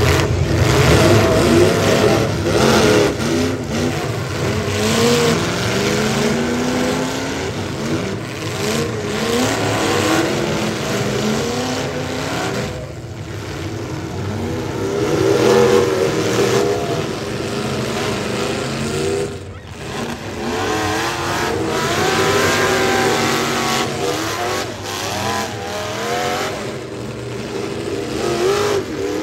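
Several demolition derby cars' engines revving hard together, their pitch repeatedly climbing and dropping as the cars push and ram one another.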